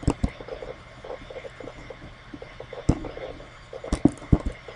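Computer mouse clicking: a few sharp clicks, two at the start, one about three seconds in and a quick cluster of three near the end, over faint room hum.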